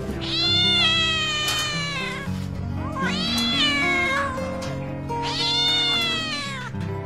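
A hungry kitten meowing: three long, loud cries, each falling in pitch toward its end, over background guitar music.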